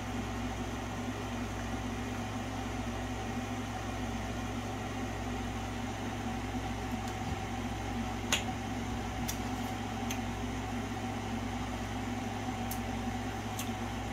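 Steady mechanical hum of room machinery, with a sharp click about eight seconds in and a few fainter ticks after it.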